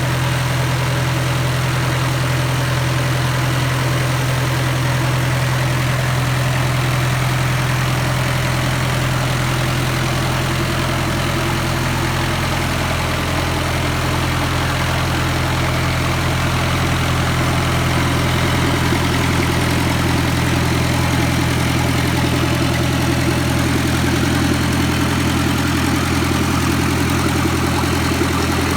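Freshly overhauled wheel loader diesel engine idling steadily on its post-rebuild test run.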